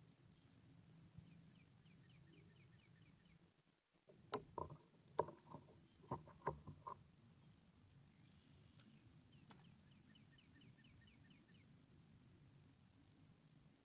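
Near silence broken about four seconds in by a quick series of about ten hollow knocks with a short ring, lasting some three seconds: gear and paddle bumping the plastic kayak hull as the paddle is put down and the camera with its long lens is picked up.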